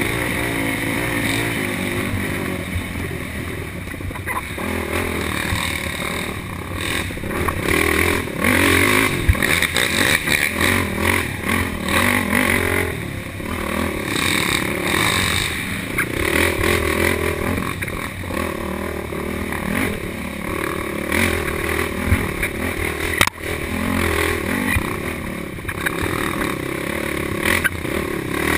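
Race quad's engine heard from onboard, revving up and dropping off again and again as it rides a rough dirt trail, with rattling and scraping from the machine. There is one sharp knock about two-thirds of the way through.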